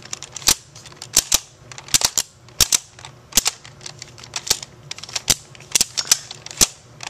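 Sharp plastic clicks and clacks from the mechanism of a DX Decadriver toy belt, with its electronics switched off, as the buckle is worked back and forth by hand. The clicks come singly or in quick pairs, about one or two a second.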